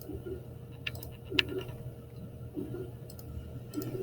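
Computer mouse clicking a few times, in small clusters, over a steady low hum.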